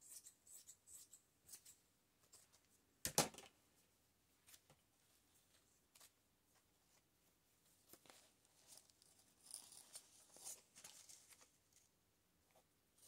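Faint snips of scissors cutting fabric, then a single sharp knock about three seconds in, followed by sparse light clicks and the soft rustle of fabric being handled.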